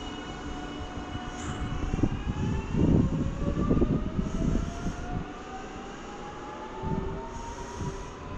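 Electric train pulling away, its traction motors giving a whine that climbs steadily in pitch as it accelerates. Louder bursts of low rumble come and go, strongest between about two and five seconds in.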